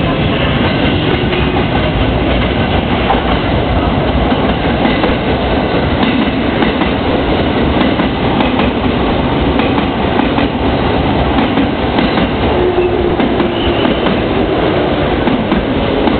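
JR East 209 series electric multiple unit pulling into the station and slowing to a stop alongside the platform, its wheels clattering over the rail joints.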